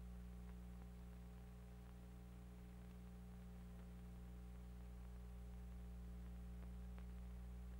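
Near silence: a steady, low electrical mains hum on the soundtrack.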